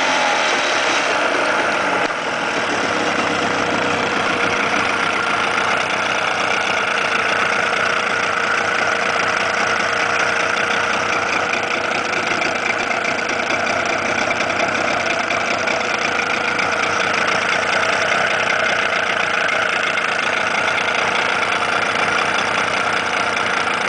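1991 Suzuki DT9.9 two-stroke 9.9 hp outboard motor idling steadily, in good running order.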